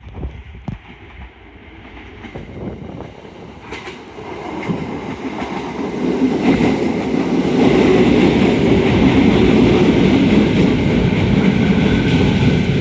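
Electric multiple-unit train of two coupled formations coming closer on the rails. It grows steadily louder from about a third of the way in and is loud and steady over the second half, with a few sharp clicks in the first seconds.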